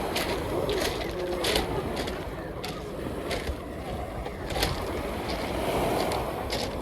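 Beach ambience: a steady low rumble of wind and surf, with sharp crunching clicks about every half second to a second.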